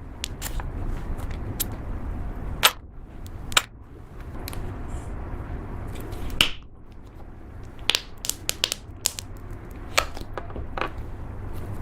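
Slime being squeezed and pressed by hand, giving irregular sharp clicks and pops as air pockets in it burst.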